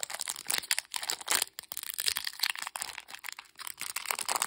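Foil wrapper of a Pokémon card booster pack crinkling and crackling in the fingers as its crimped top is picked at and torn open by hand, a quick run of sharp, irregular crackles.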